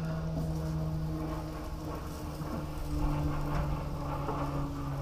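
Raw chicken wings sizzling on the hot grates of a gas grill as they are laid down one by one, a crackling hiss that grows busier a couple of seconds in. Under it runs a steady low hum that steps down slightly in pitch twice.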